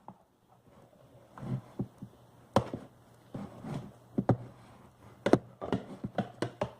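Irregular taps and knocks of a utensil against a plastic pot as a stiff slime is stirred, with softer wet thuds between them; the knocks come closer together near the end.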